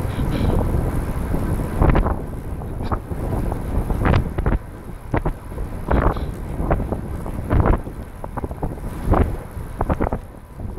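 Wind buffeting the microphone of a camera riding on a moving recumbent trike: a steady low rumble broken by short, uneven gusts every second or so.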